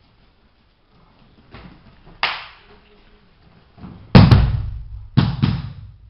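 A person thrown onto padded martial-arts mats, landing with a heavy thud about four seconds in, followed by two quick slaps on the mat. A single sharp smack comes about two seconds earlier.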